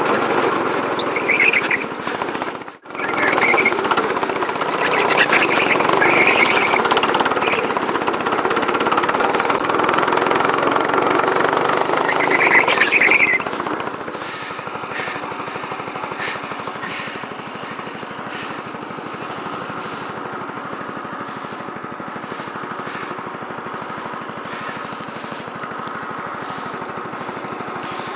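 Go-kart engine running hard as the kart is driven and drifted, with a few short tyre squeals in the first half. About halfway through it drops to a quieter, even idle as the kart comes to a stop.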